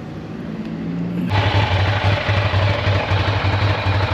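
A starter whirs for about a second, then a Ducati Diavel's L-twin engine fires. It is a cold start, and the engine settles into a steady, evenly pulsing idle.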